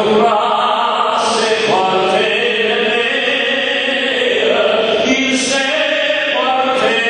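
Many voices singing together in a chant, holding notes that shift in pitch every second or two.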